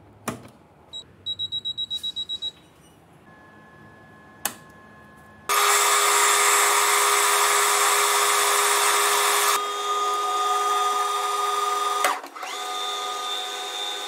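A click as the lathe's start button is pressed, then a quick run of short high beeps, a faint whine and another click. About five seconds in, a metal lathe comes in loud, running with a steady whine as a twist drill in the tailstock chuck bores into a spinning steel bar; the tone shifts twice near the end.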